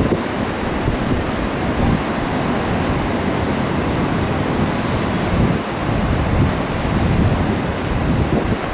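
Pacific Ocean surf washing onto the beach, mixed with wind blowing across the microphone that makes a gusty, uneven low rumble.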